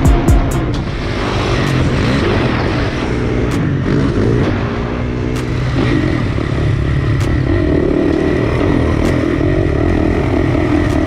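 Motorcycle engine revving, its pitch rising and falling for the first few seconds, then holding a steadier drone through the second half.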